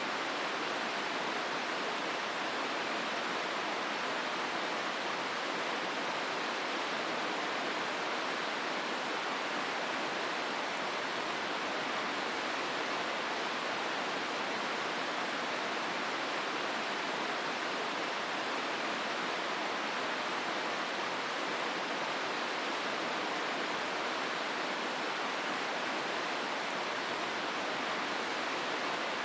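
River water rushing steadily over rapids: an even, unbroken hiss.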